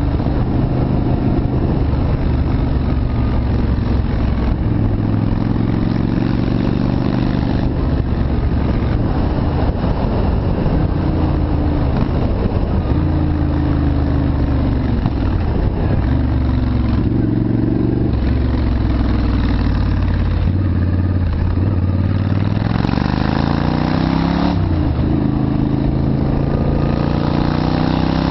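Yamaha Virago's V-twin engine running under way, its pitch rising and falling with the throttle. Near the end it climbs steadily, drops sharply at a gear change, and climbs again.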